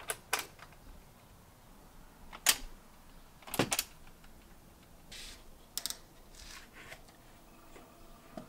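Scattered sharp clicks and knocks as a hand handles hard-plastic cordless power tools hanging on a pegboard. The clicks are irregular, several in all, with the loudest about two and a half and three and a half seconds in.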